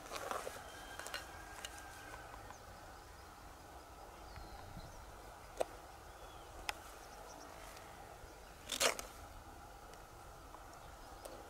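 Hands handling freshwater mussel shells: a few sharp clicks scattered through, and one louder brief scrape about nine seconds in.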